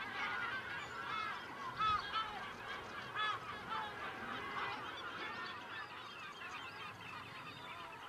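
Many seabirds calling over one another, a colony chorus of short arched calls, busiest in the first half and slowly fading toward the end.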